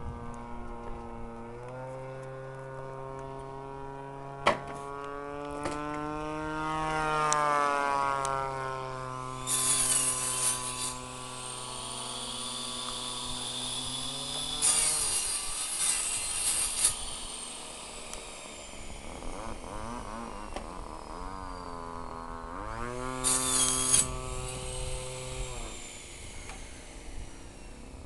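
DLE 20 single-cylinder two-stroke petrol engine of a radio-controlled model plane in flight, its buzzing note rising and falling in pitch with throttle and passes. It fades away near the middle and comes back strongly for a few seconds after about 22 seconds, with a few short bursts of hiss over it.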